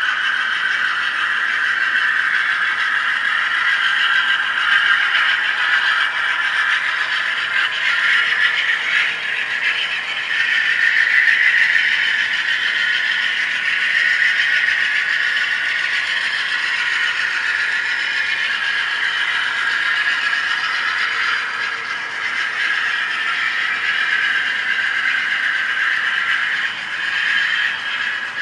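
HO-scale Korea Brass U25C model locomotive's factory-fitted TCS WOWsound decoder playing a GE diesel engine sound through its small onboard speaker, running steadily and thin-sounding with almost no deep rumble.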